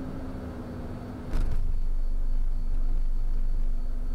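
Cessna CJ2+ business jet with its engines at idle in the landing flare. About a second in there is a knock as the main wheels touch down, followed by a louder, steady low rumble of the wheels rolling on the runway.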